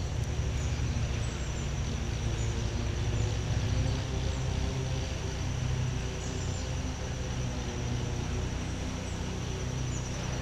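Lawn mower engine running with a steady drone that swells and eases, loudest a few seconds in. A steady high pulsing insect trill sits over it.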